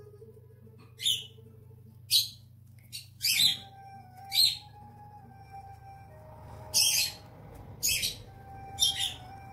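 A bird chirping over and over: short, high chirps about once a second, with a pause around five to six seconds in, over a steady low hum.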